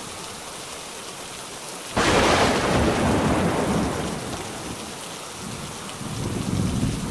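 Steady rain with a sudden crack of thunder about two seconds in, which rumbles for a couple of seconds and dies away. Thunder builds again near the end.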